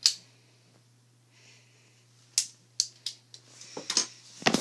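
A few sharp, separate clicks and taps of hard objects being handled. There is a single click at the start, more about halfway through, then a louder clatter of handling just before the end.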